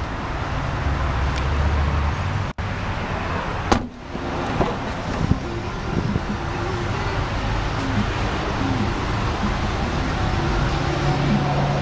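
2004 Nissan Pathfinder's 3.5-litre V6 idling steadily, with a single sharp click about four seconds in.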